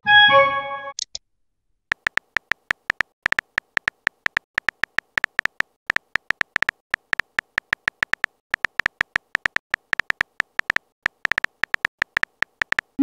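Smartphone keyboard typing clicks, a quick, slightly irregular run of about five taps a second, starting about two seconds in. Before it comes a short chime of several notes as a message is sent, and a quick rising swoosh comes right at the end.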